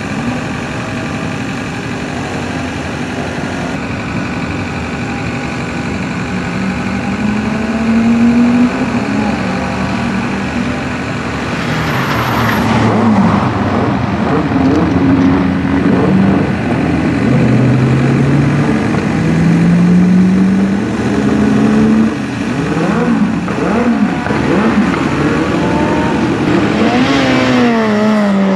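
Competition car's engine driven hard on a sprint run. The revs climb and drop again and again as it changes gear, growing louder about a third of the way in as it nears, and falls away near the end as it slows.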